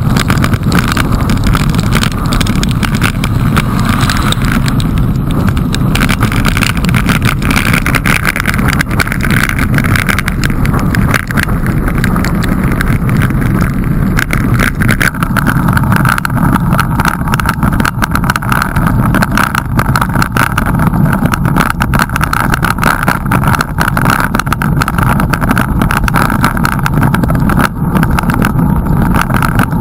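Loud, steady wind rush on the microphone of a camera mounted on a moving bicycle, with the tyres hissing over a wet road and scattered small crackles.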